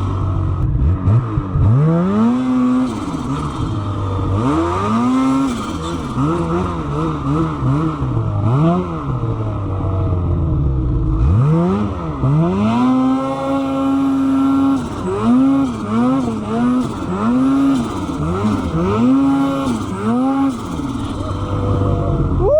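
Two-stroke snowmobile engine revving up and dropping back again and again as the throttle is worked, its pitch climbing and falling in repeated swells.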